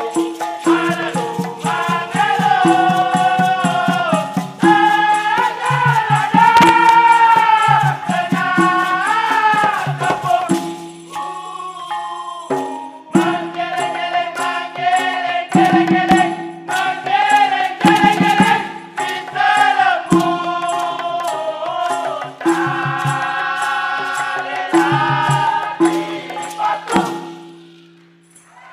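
Dikir barat: a chorus of voices singing together over a steady percussion beat with a rattle, pausing briefly partway through. The music stops near the end.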